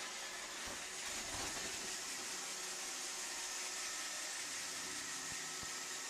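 iRobot Roomba 761 robot vacuum running: a steady whir and hiss from its suction fan and brushes, with a few faint steady motor whines under it.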